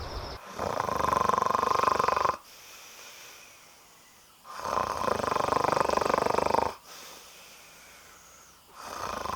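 A person snoring: two long, loud snores about four seconds apart, with quieter breathing between them.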